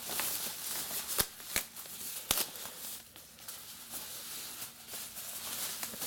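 Thin plastic bag rustling and crinkling as hands pull a bundle of cables out of it, with three sharp clicks in the first couple of seconds.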